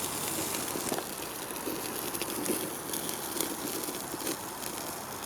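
Whole chicken cooking over a campfire: an even sizzling hiss with scattered sharp crackles and pops from the fire.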